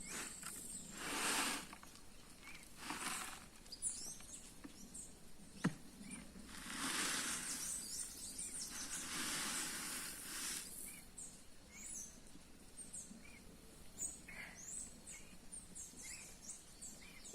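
Quiet outdoor rural ambience: small birds chirping here and there over slow swells of rushing noise like wind through vegetation, with one sharp click about six seconds in.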